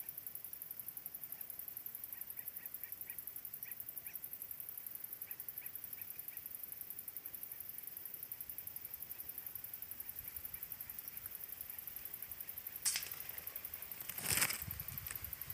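A steady, high-pitched insect trill pulsing rapidly throughout, with faint short bird chirps in the first half. Near the end come two brief rustling knocks, the second the loudest, from the recording device being handled and moved.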